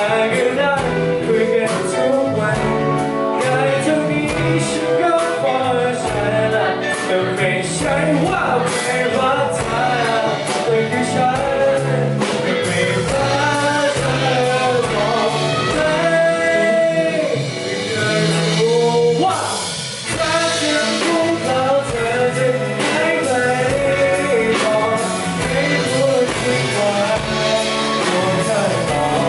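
A singer performing a song live with a band, with guitar, bass and drums.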